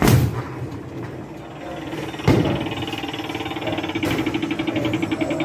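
A punch thuds into the punching bag of a Combo Boxer arcade boxing machine, followed by a second thump about two seconds later. The machine then sets off a rapid electronic ticking over a steady tone as its score display counts up.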